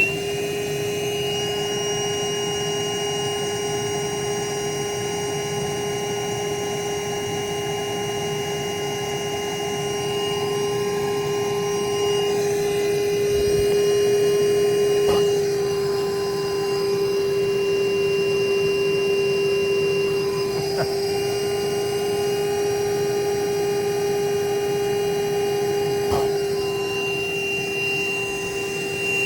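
A small electric motor spins up and then runs steadily with a constant whine, with a few faint clicks along the way.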